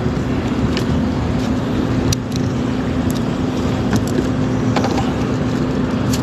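A motor running steadily, a constant low hum under a rushing noise, with a few light clicks and knocks of handling scattered through.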